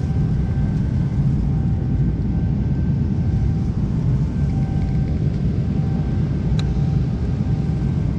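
Airliner cabin noise: a steady low rumble with a faint steady hum over it. A single sharp click comes about two-thirds of the way through as the seatback tray table is let down.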